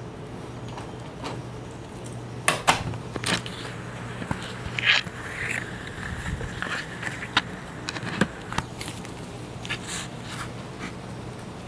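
Cats licking and nibbling dried catnip off tiles close to the microphone: irregular clicks, scrapes and crackles, the loudest two to three seconds in, over a steady low hum.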